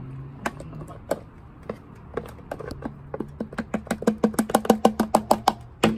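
A metal spoon tapping against the rim of a large glass jar: a few scattered taps, then a quick regular run of about six taps a second from about three and a half seconds in, each with a short ring.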